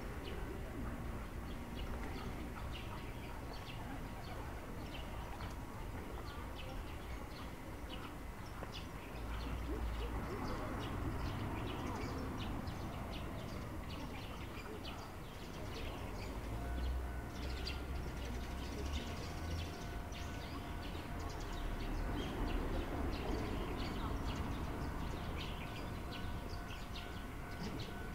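Outdoor spring park ambience: birds chirping and calling throughout, with occasional low rumbles. A faint steady hum joins about halfway through.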